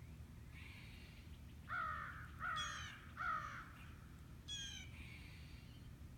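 A crow cawing three times in quick succession, each caw harsh and falling in pitch. A thinner, higher call sounds twice, once over the second caw and once about a second after the last.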